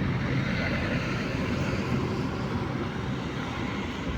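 Steady engine drone of a passing vehicle, a little louder in the first half.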